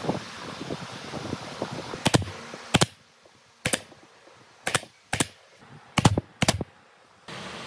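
Pneumatic nail gun firing about seven sharp shots at uneven intervals, starting about two seconds in, as it drives nails through small wooden blocks into a cabinet top. Light knocks of the blocks being handled come before the first shot.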